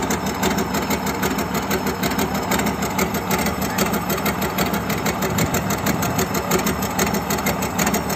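Komatsu excavator's diesel engine running steadily with a fast, uneven pulsing beat, the rough 'coughing' running of an engine that is out of adjustment.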